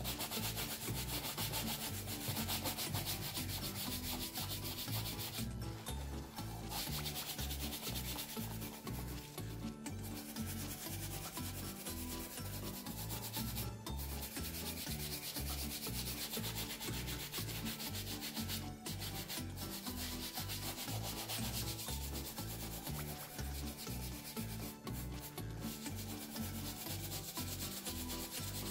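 Bristles of a wooden-backed shoe brush scrubbing over the leather of a brown Allen Edmonds wingtip brogue in quick back-and-forth strokes. There are brief pauses every few seconds.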